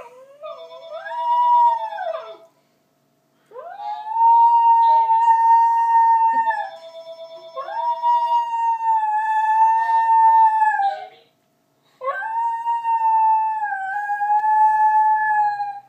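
Small long-haired dog howling along with a ringing phone: four long drawn-out howls, the first shorter and rising then falling, the others held for three to four seconds each. The phone's steady ring sounds twice beneath them, for about two seconds each time.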